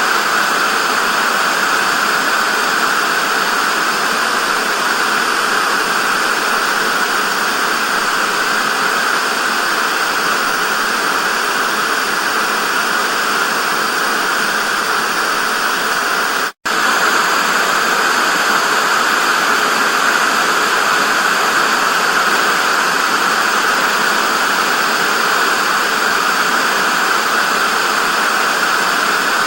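Television static: a steady, loud hiss, strongest in the upper-middle range with little bass. It cuts out for a split second a little past halfway, then resumes.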